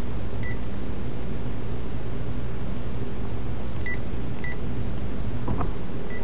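Cordless phone handset keypad beeping as 911 is keyed in: four short high beeps spaced unevenly, over a steady low hum.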